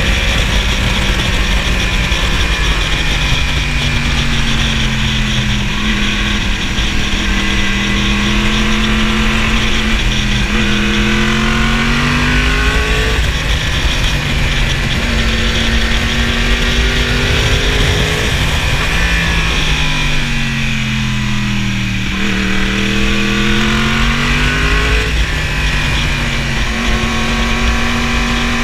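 2015 Yamaha R1's crossplane inline-four engine, heard from on the bike, its pitch rising and falling again and again as it accelerates and rolls off through bends. A deeper drop and climb comes about three-quarters of the way through. Heavy wind rush runs underneath.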